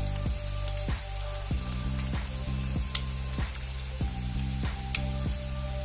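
Breadcrumb-coated potato, poha and paneer balls deep-frying in hot oil: a steady sizzle with small crackles and pops. Background music with a simple melody plays throughout.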